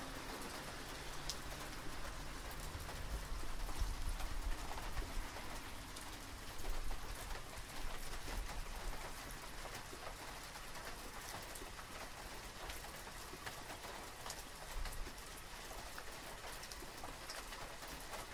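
Rain falling on wet pavement and ground: an even patter with scattered small drip ticks.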